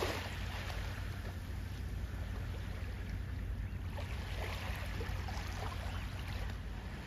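Shallow sea water splashing and trickling lightly around a wading dog, with a cluster of splashes about four seconds in, over a steady low rumble of wind on the microphone.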